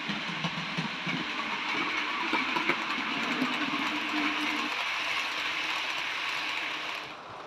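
Model diesel locomotive and coaches running along the layout track: a steady mechanical rush of wheels and motor with a low hum that stops about two-thirds of the way through. The rushing cuts off sharply near the end.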